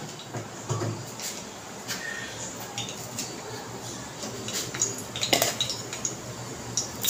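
Cumin and fennel seeds frying in hot oil in a metal kadhai on a gas stove: a faint steady sizzle with scattered light clicks and clinks of metal kitchenware, the strongest right at the start and about five seconds in.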